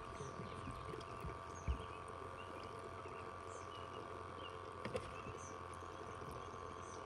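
Faint evening lake ambience: a steady low hum under scattered short chirping calls of small animals. A dull knock sounds about a second and a half in, and a sharp click near five seconds.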